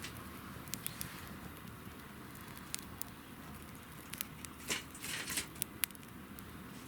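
Campfire crackling: a wood fire burning with a steady low hiss and scattered sharp pops, with a quick run of louder pops about five seconds in.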